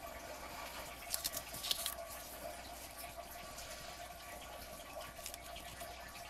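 Faint steady background hum, with a few soft, short sticky crackles about a second in and again near the five-second mark: wet newsprint soaked in matte gel medium being pressed and smoothed down by hand.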